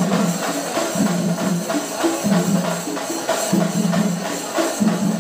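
Music with a steady percussion beat and jingling, tambourine-like percussion over sustained low notes.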